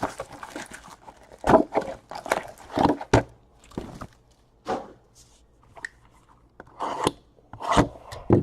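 Trading cards and foil pack wrappers being handled: irregular crinkling, scraping and tapping in short spurts, with a quieter pause about five seconds in.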